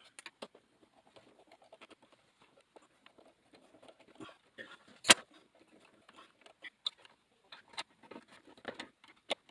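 A small screwdriver clicking and scraping in the screw terminals of an RGBW LED RF receiver as stripped wires are pushed in and clamped. Irregular light clicks and rustles, with one sharp click about five seconds in.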